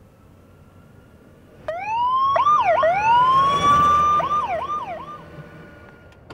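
Police motorcycle's electronic siren, starting about a second and a half in. It gives a rising wail, two quick yelps, and another rising wail held briefly. It ends with a run of about four fast yelps that fade out, the signal for a traffic stop.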